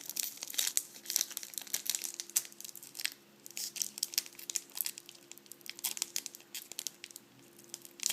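Trading-card pack wrapper crinkling and crackling in the hands as it is worked at to tear it open, a run of irregular sharp crackles with a couple of brief lulls; the pack is stubborn and slow to give.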